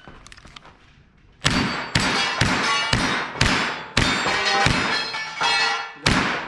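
A string of about nine .22 LR shots from a semi-automatic Umarex Walther H&K MP5 rimfire rifle, starting about a second and a half in and coming roughly two a second. Each shot is a sharp crack with a brief ring after it.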